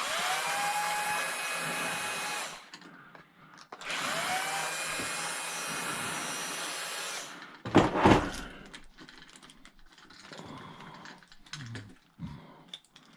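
Handheld power drill running twice for a few seconds each, spinning up to a steady whine. A heavy clunk follows, then light knocks of parts being handled.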